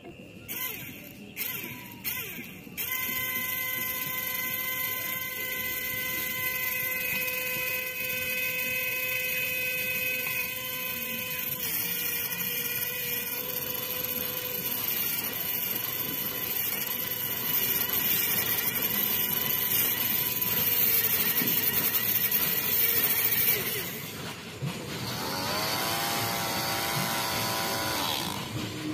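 Small electric motor driving a toy tractor's circular saw blade, starting up about three seconds in after a few brief stutters, then running with a steady whine as the blade spins. A few seconds before the end the whine dips and then climbs in pitch.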